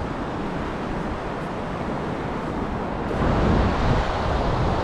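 Ocean surf washing in at a rocky tide-pool shore, a steady rush that swells about three seconds in, with wind rumbling on the microphone.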